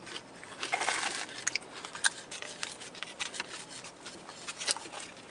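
Close-miked eating sounds: chewing and crunching on food, a string of short crackles and clicks with a denser rustling burst about a second in.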